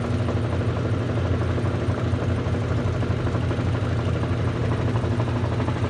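Consul Facilite 10 kg washing machine in its spin cycle, spinning a load of cloths with a steady, even hum.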